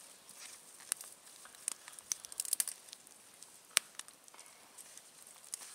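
Small wood fire crackling, with scattered sharp pops and one louder snap about two thirds of the way through.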